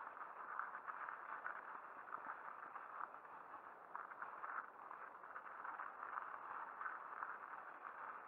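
Mountain bike riding over a snow-patched forest trail: a steady, irregular rattle and scrape of tyres and frame over the rough, wet ground.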